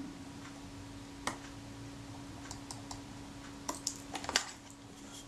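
Small sharp clicks and taps of tiny chrome-plated screws being fitted into a camera's metal top cover: one click about a second in, a few faint ticks, then a quick cluster of louder clicks near the end. A steady faint hum runs underneath.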